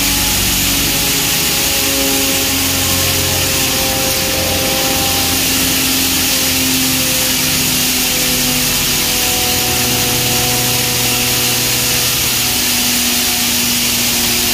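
Belt-driven hammer-mill pulverizer running steadily: a loud, even hiss with a few faint hums underneath.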